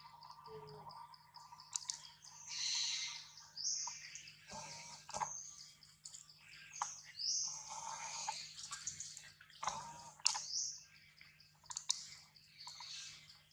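Birds calling repeatedly in the trees: bursts of high chirps and a few quick upward-sweeping calls, with scattered sharp clicks and a steady low hum underneath.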